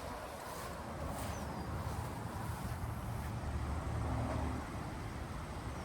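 Wind buffeting the microphone: a low, uneven rumble, swelling slightly about four seconds in.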